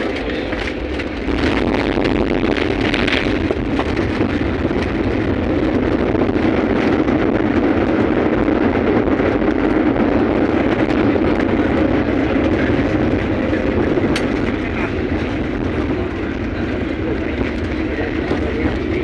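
Steady noise of a jet airliner, rising about a second in, holding, then easing off a little near the end.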